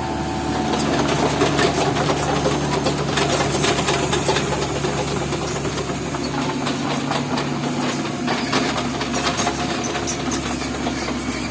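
Excavator engine running steadily, with scattered clicks and knocks over it.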